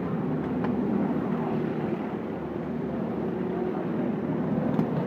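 Several small winged Ninja kart engines running together on track, a steady engine drone, with spectators talking over it.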